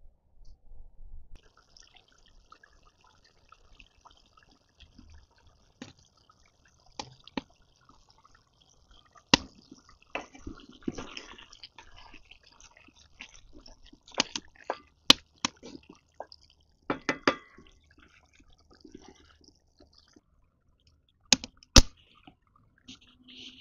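Pork curry bubbling in a metal pot, stirred with a wooden spoon, with a scattering of sharp knocks and clicks in small clusters.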